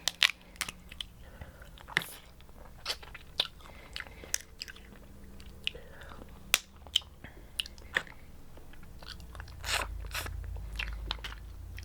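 Close-up eating sounds from a seafood boil: chewing and biting crab, with many short sharp clicks and cracks of shell scattered throughout.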